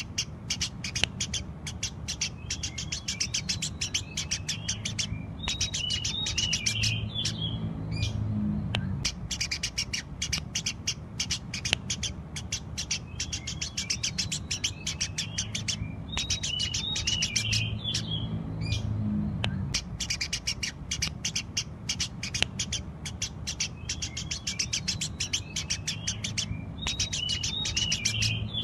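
Eurasian tree sparrows chirping continuously in rapid, dense runs, broken every ten seconds or so by a brief twittering phrase, over a low steady hum.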